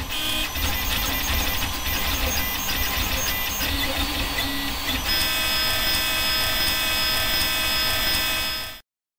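3D printer printing: its stepper motors whine in several steady pitches over a low hum, and the pitches shift about five seconds in as the print head changes moves. The sound cuts off suddenly near the end.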